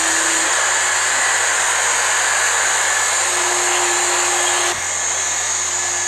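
Steady, loud whirring hiss of Boston Dynamics Handle warehouse robots running as they lift boxes, with a faint hum under it. It drops a little in level near the end.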